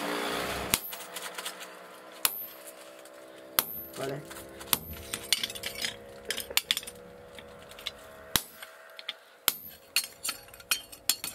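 Hammers striking hot iron on a steel anvil block while an axe head is forged by hand. There are several heavy blows with metallic ringing after them, irregularly spaced a second or more apart, and lighter taps between them.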